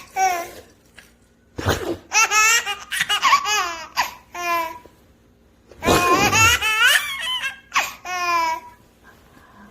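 Baby laughing in several bursts of high-pitched giggles and belly laughs, with short pauses between them.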